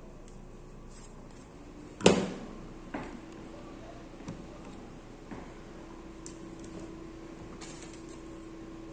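Objects handled and set down on a hard work surface: one sharp knock about two seconds in, then a few lighter clicks and taps, over a faint steady hum.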